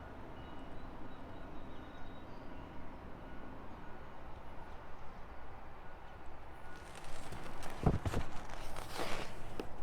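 Steady low background noise, then a few knocks and thumps in the last three seconds, the loudest about eight seconds in.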